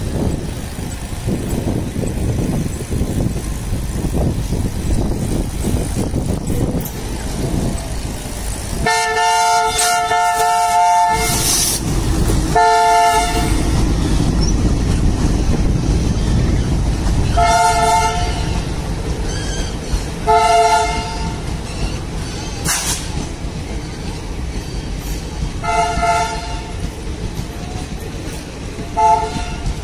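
Indian Railways diesel locomotive passing close with its engine rumbling, sounding its multi-tone horn about six times: one long blast about nine seconds in, then a series of shorter toots.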